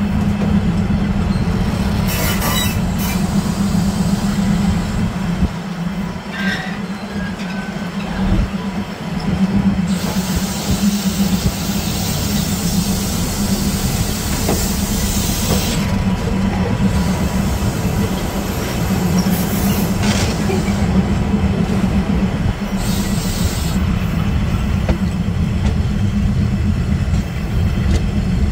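Railway carriages rolling past over a timber trestle, their wheels on the rails giving a steady heavy rumble. Over it come spells of high squealing from the wheels: a short one about two seconds in, a long one of some six seconds starting about ten seconds in, and shorter ones around twenty and twenty-three seconds in.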